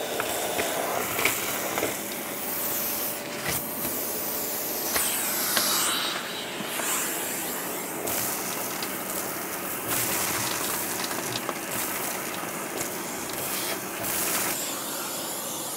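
Shop vacuum running steadily as it sucks ash out of the bottom of a kamado grill, with scattered clicks and rattles throughout. It begins to wind down right at the end.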